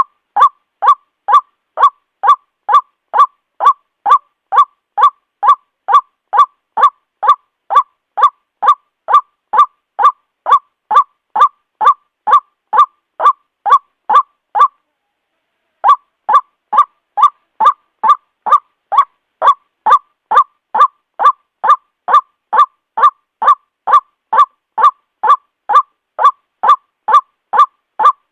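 White-breasted waterhen giving its repetitive call: short notes about two a second. The call breaks off for about a second midway, then resumes at the same pace.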